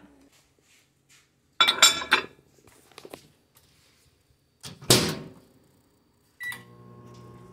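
Hamilton Beach microwave oven being loaded and started: a clatter about two seconds in, a loud thud of the door shutting about five seconds in, a short keypad beep, then the oven starts running with a steady hum.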